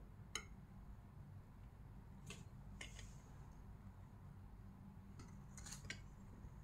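Light clicks and clinks of a metal knife and a spatula touching a glass baking dish as brownies are cut and lifted: about six short ticks, the sharpest about a third of a second in and a small cluster near the end, over a faint low hum.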